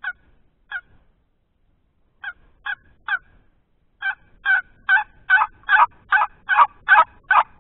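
Turkey call sounding a series of hen yelps: a few spaced notes, then from about four seconds in a steady run of about two and a half yelps a second that grows louder, calling to draw a gobble from a tom.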